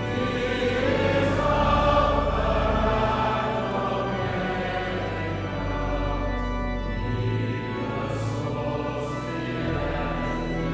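Choral music: a choir singing sustained, slow-moving chords over held low bass notes.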